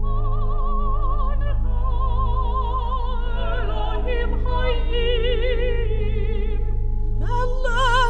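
Music: a slow melodic line of long held notes with a wide vibrato over a steady low drone. A new phrase glides up near the end.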